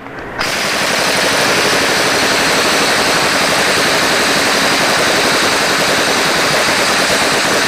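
Hand-held power ratchet running steadily for several seconds, spinning off a connecting rod cap nut.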